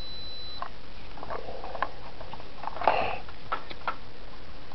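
A multimeter's high continuity beep stops about half a second in. Then comes a dog sniffing and mouthing a chew toy, in soft scuffles with a few sharp little clicks, the loudest near the three-second mark.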